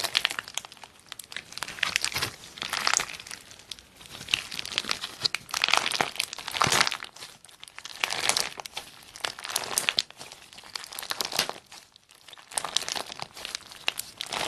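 Slime being squeezed, poked and stretched by hand, giving crackling, crinkling noises in irregular bursts every second or two.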